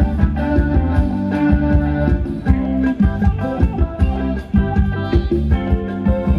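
Live band playing Thai ramwong dance music with a steady drum beat.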